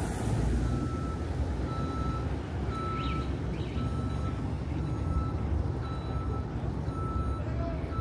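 A vehicle's reversing alarm beeping steadily, about once a second, over the low rumble of street traffic.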